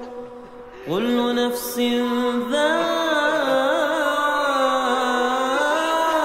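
Chanted singing: an ornamented, wavering vocal melody over a steady held drone note. The sound is quieter at the start and swells back about a second in. The ornamented melody line comes in about two and a half seconds in.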